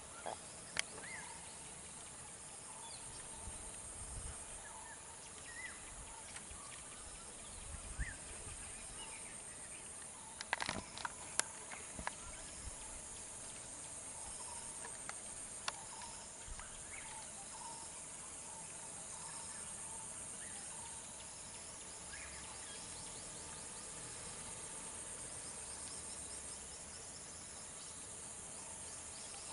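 Steady high-pitched chorus of insects droning in the jungle roadside vegetation, with a few sharp clicks or knocks, a small cluster about a third of the way in.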